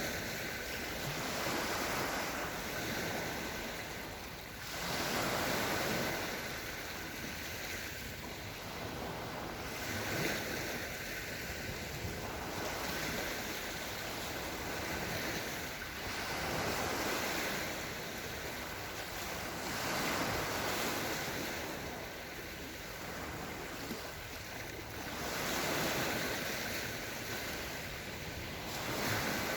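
Small Black Sea waves washing gently onto the shore, swelling and falling back every few seconds.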